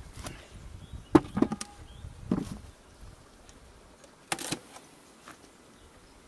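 Wooden beehive parts knocking and clattering as the inner cover and hive are handled: a few sharp knocks about a second in and again near two and a half seconds. About four seconds in comes a short hissing puff from a bee smoker.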